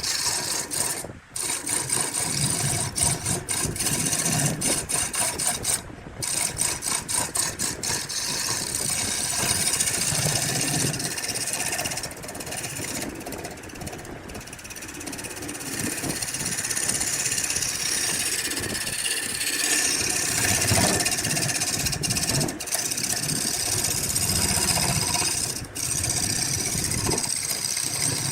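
Woodworking tool noise: a steady hiss and hum of tools working wood, with quick repeated strokes over the first eight seconds and two brief breaks.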